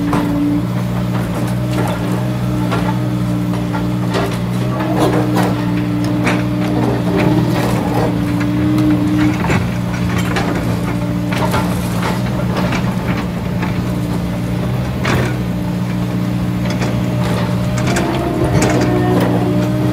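Kobelco SK200 hydraulic excavator running with a steady diesel drone as it digs, with a higher steady tone that drops out and returns several times. Scattered knocks and crunches come from the bucket working the soil.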